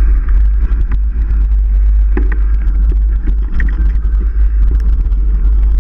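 Riding a mountain bike: steady low wind rumble on the camera microphone, with scattered clicks and rattles from the bike over the trail.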